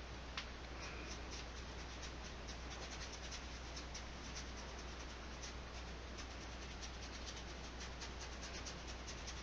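Nylon flat brush dabbing and stroking acrylic paint onto canvas: a faint run of quick, light scratchy ticks, with one sharper tap about half a second in, over a steady low hum.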